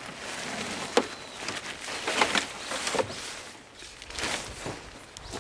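Docking-tent fabric rustling and scraping as it is pulled and fitted over a car's open tailgate, with a handful of sharp clicks and knocks from the handling.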